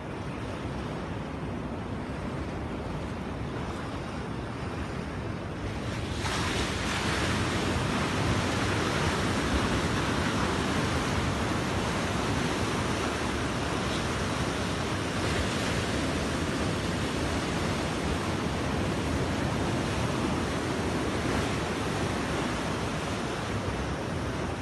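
Sea waves breaking and washing over rocks, with some wind noise on the microphone. About six seconds in the surf gets suddenly louder and fuller and stays that way.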